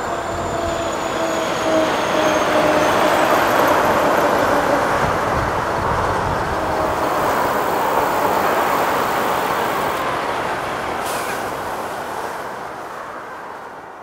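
Road traffic passing by from left to right: a steady rush of tyres and engines that swells to a peak mid-way and then slowly fades out near the end, with faint tones dropping slightly in pitch early on.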